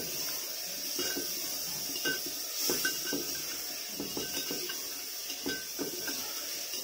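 Metal spoon stirring and scraping in a round metal cooking pot, with a dozen or so short clinks against the pot's side over a steady hiss. Chopped tomatoes are being fried into spiced onion-garlic paste.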